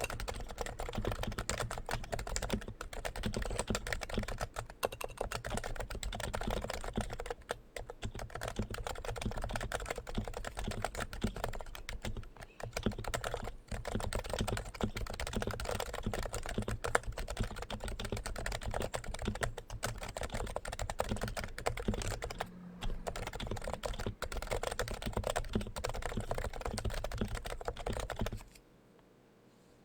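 Continuous fast typing on a Topre Realforce R2 tenkeyless keyboard with Topre electrostatic capacitive switches: a dense stream of key presses that stops shortly before the end.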